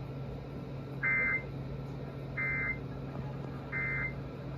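Emergency Alert System end-of-message code: three short bursts of digital data tone, about a second and a half apart, signalling the end of the alert. A low steady hum runs underneath.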